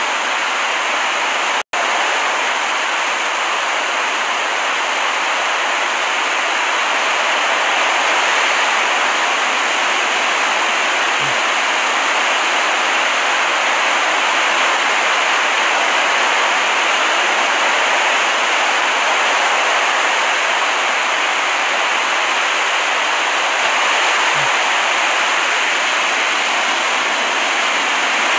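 Recorded ocean-surf ambience: a steady, even wash of water noise with no distinct waves. It cuts out for an instant a couple of seconds in, at a splice in the looped recording.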